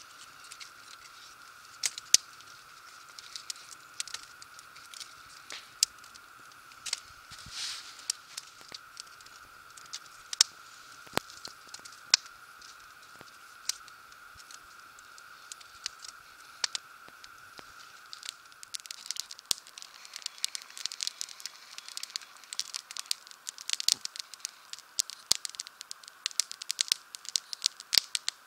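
Small wood campfire crackling, with irregular sharp snaps and pops that come thicker in the last third.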